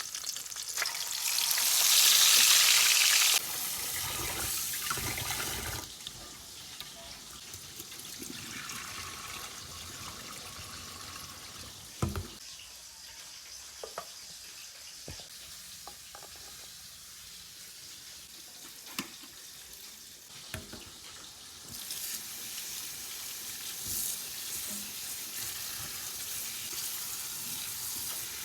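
Kitchen sounds: a loud rush of running water from a tap for about three seconds that cuts off sharply. A quieter steady hiss follows, broken by a few sharp clicks and knocks of utensils, and it grows louder again near the end.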